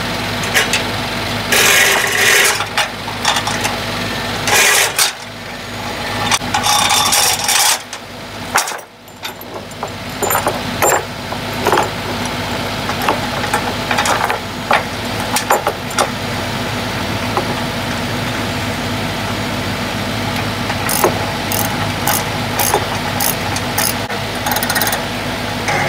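An engine running steadily, with irregular metallic rattling and clanking.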